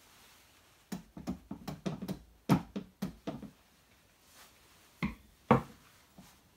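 Mallet knocking on a homemade star nut press tool, driving a star nut down into a bike fork's steerer tube: a quick run of about ten knocks, then two harder blows about half a second apart near the end.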